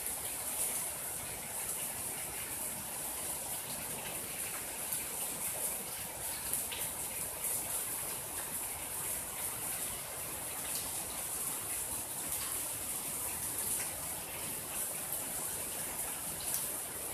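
Steady rain falling, an even hiss with a few sharper single drops standing out here and there.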